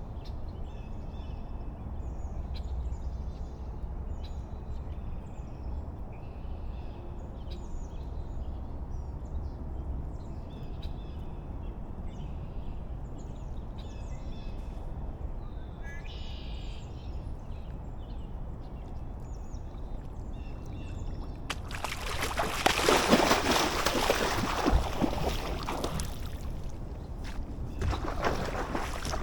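Small birds chirping over a low steady rumble. About three-quarters of the way through, loud water splashing for about five seconds, starting again near the end.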